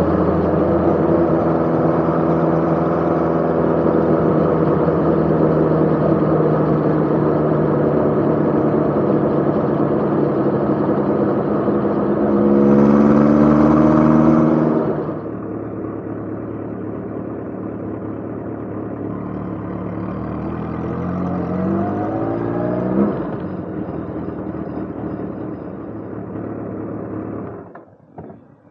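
Motorcycle engine running under way with a steady note. It brightens and gets louder briefly a little before halfway, rises in pitch as it accelerates about three quarters through, then fades away near the end.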